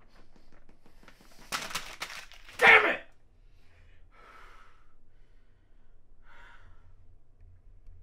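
A person's loud gasp about three seconds in, just after a short noisy rush of breath, followed by two softer breaths.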